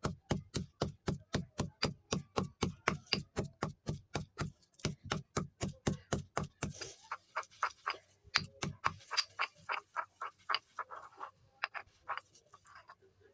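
Rapid, even crunching of chalk sticks being crushed, about four to five crunches a second with a dull thud under each. After about seven seconds the crunches become lighter and sparser, then die away near the end.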